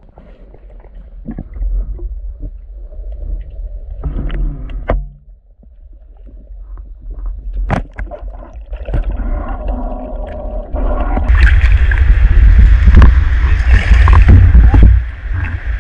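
Muffled underwater rumble with scattered clicks and knocks. About eleven seconds in it gives way to loud splashing and rushing of river water as the spearfisher surfaces and moves in the shallows.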